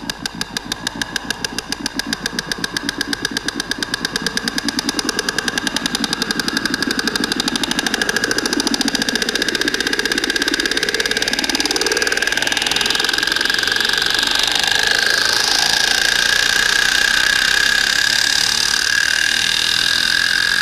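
Trance music build-up: a rapid, evenly pulsing synth line that grows louder over the first several seconds while its filter sweeps upward, with a steady high note held above it.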